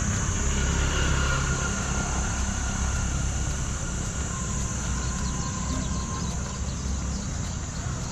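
Street traffic ambience: the steady low rumble of motor vehicle engines running close by, with a faint thin tone for a couple of seconds in the middle.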